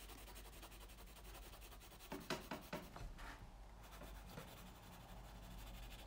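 Faint scratching of a graphite pencil shading on paper, filling in the dark areas of a drawing, with a few brisk strokes about two seconds in.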